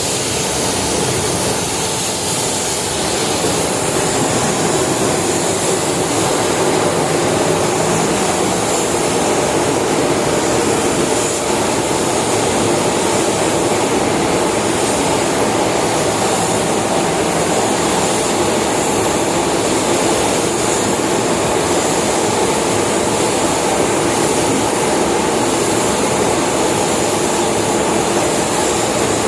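Steady, loud rush of air in a car paint spray booth: the booth's ventilation fans running while a compressed-air spray gun sprays clear coat lacquer onto the car.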